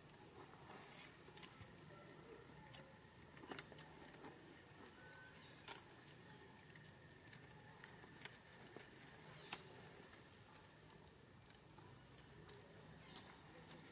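Faint rustling and crackling of dry corn husks and leaf litter as monkeys handle and chew the husks, with a handful of sharper crackles in the middle of the stretch.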